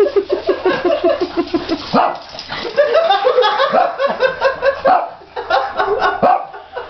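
Small dachshund barking and yipping excitedly, in quick repeated short barks.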